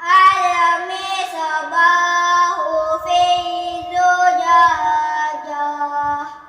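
Melodic Quran recitation in a child's high voice: one long phrase of held, ornamented notes that glide between pitches, breaking off just before the end.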